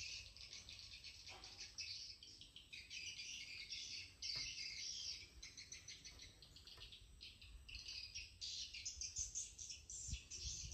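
Insects chirring and birds chirping together in fast, high-pitched pulses that keep stopping and starting.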